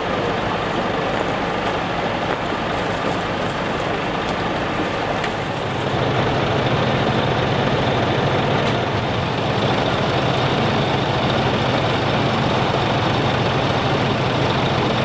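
Fire engine idling steadily. About five and a half seconds in, a louder, deeper steady hum comes in and holds.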